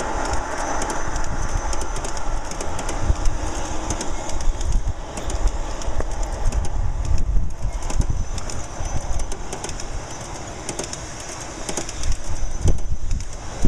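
Large-scale garden-railway model freight train of double-stack container cars rolling past on outdoor track. Its metal wheels rumble and click irregularly on the rails.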